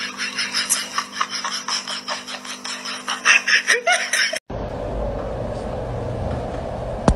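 A person laughing hard in rapid bursts over a steady hum. It cuts off suddenly about four seconds in and gives way to a steady low room noise, with one sharp click near the end.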